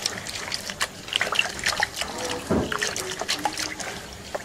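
Hands squeezing and kneading a cloth bag of ground tiger nut pulp in a basin of liquid, straining out the milk: irregular wet squelches, splashes and trickles of liquid.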